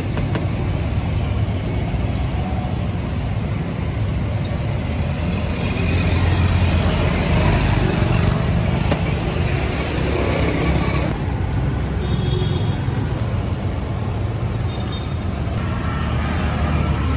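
Roadside traffic ambience: a steady low rumble of passing motor vehicles, with a brighter hiss that swells and then drops away sharply about eleven seconds in.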